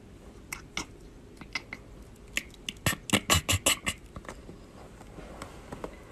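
Cat chattering: quick clicking chirps, a few scattered ones and then a rapid run of about six a second near the middle. It is the excited chatter a cat makes while staring at prey it cannot reach.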